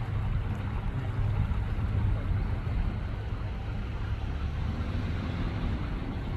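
Steady low rumble with no clear rhythm, with faint voices about five seconds in.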